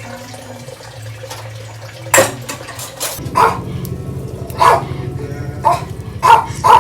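A dog barking, about six short sharp barks starting about two seconds in, over a steady low hum.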